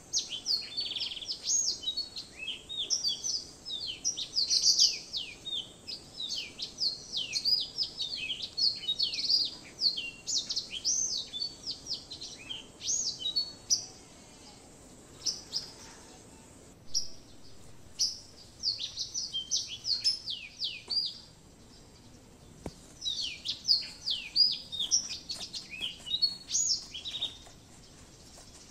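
Small birds chirping and twittering in quick, dense runs of short falling notes, with a few pauses of a second or more between runs.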